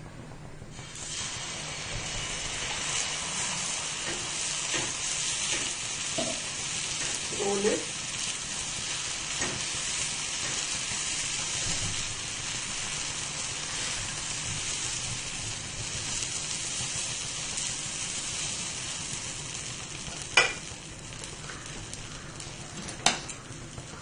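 Dosa batter sizzling on a hot oiled tawa, starting about a second in, while a steel ladle spreads it outward in circles. Two sharp clicks near the end.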